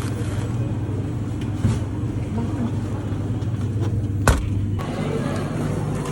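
Steady low hum of a running vehicle, with a single sharp click about four seconds in.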